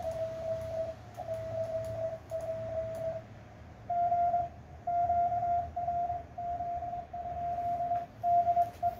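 Morse code (CW) from a portable ham radio transceiver: a single steady mid-pitched beep keyed on and off in short and long elements. After a brief pause about three seconds in, the tone comes back slightly higher in pitch.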